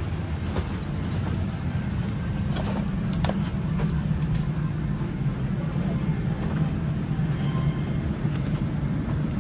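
Steady low rumble of a moving road vehicle heard from inside, with a few light clicks about three seconds in.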